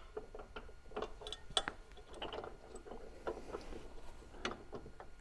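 Faint, irregular small metallic clicks and taps as long bolts are pushed through the bumper mounting bracket and fitted by hand.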